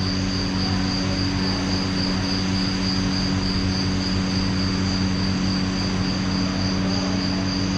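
Electric fans running: a steady whirring hum with a constant thin high whine over it.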